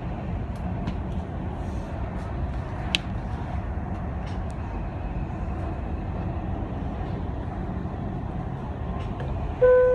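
Dubai Metro train running, a steady rumble of the carriage heard from inside, with one sharp click about three seconds in. Near the end the onboard announcement chime starts, two falling notes that lead into the next-station announcement.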